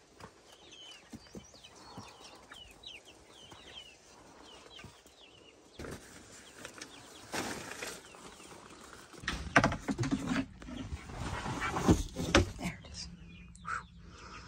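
Chickens cheeping with short high calls, then from about six seconds in rustling, scraping and sharp knocks as coop gear and a plastic tote are handled and moved, the loudest knocks around ten and twelve seconds in.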